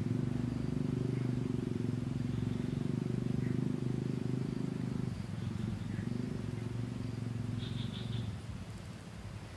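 A steady, low engine rumble, dropping slightly about five seconds in and again near the end, with a few faint high chirps over it.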